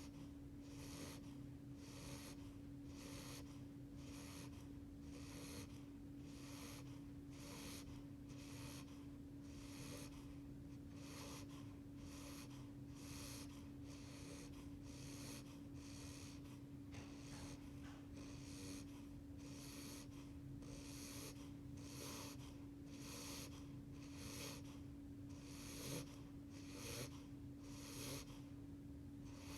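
Beagle puppy, about eight weeks old, snoring softly in his sleep: rapid, regular little puffs of breath, over a steady hum.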